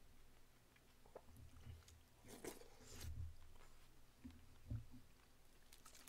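Faint chewing and soft mouth clicks of a person eating a mouthful of pork soybean-pulp stew, with a few slightly louder wet chews in the middle.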